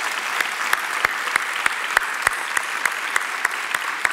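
Congregation applauding, with one person's hands clapping close to the microphone, louder than the rest, about three times a second.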